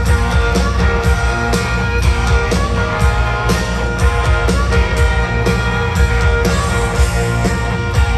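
Live country-rock band playing through a stadium PA: guitars over a steady drum beat of about two hits a second.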